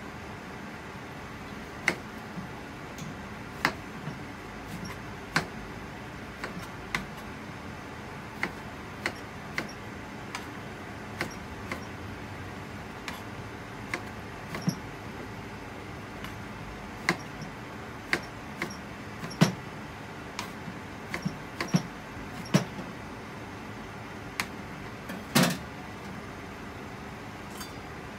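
Kitchen knife cutting eggplant into pieces on a plastic cutting board: separate sharp knocks every second or two, irregularly spaced, over a steady background hiss.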